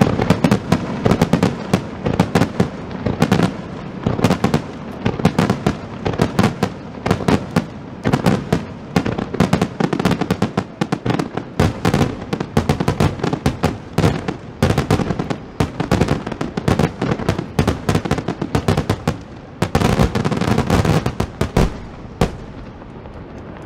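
Fireworks finale barrage: aerial shells bursting in rapid, overlapping bangs and crackles with no let-up, stopping abruptly about a second before the end.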